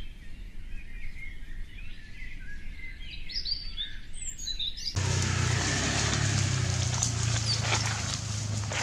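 Small birds chirping in short rising and falling calls for about five seconds. Then an abrupt change to an outdoor recording: a steady low hum under a hiss, with a few sharp rustling clicks near the end.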